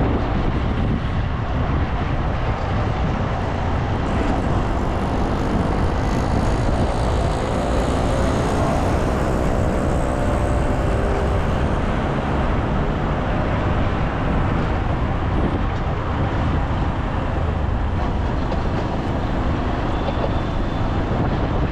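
Steady road and traffic noise from a vehicle driving in city traffic, with heavy low wind rumble on the microphone. A faint engine hum swells in the middle.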